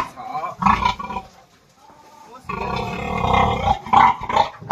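Large pig squealing as it is restrained: short squeals about half a second in, a long squeal lasting over a second from about two and a half seconds in, and more short squeals near the end.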